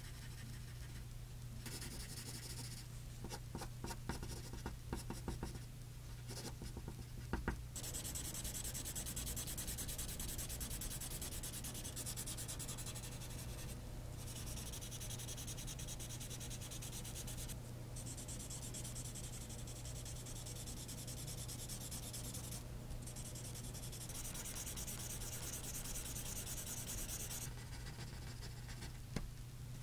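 Pencil scratching across drawing paper: short separate strokes for the first several seconds, then long continuous back-and-forth shading with a few brief pauses.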